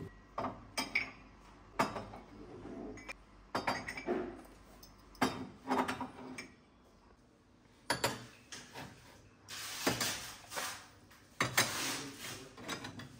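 Crockery being put away on shelves: dishes and glassware clinking as they are set down, one sharp clink every second or two. There is a short lull about seven seconds in, then a busier run of clinks near the end.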